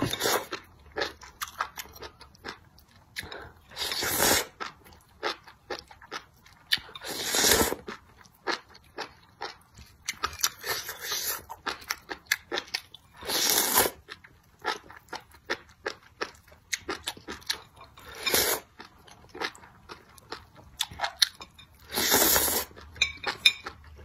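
Chewing and crunching of spicy enoki mushrooms, with many short wet mouth clicks. About six longer sucking sounds come every three to five seconds as strands are slurped in.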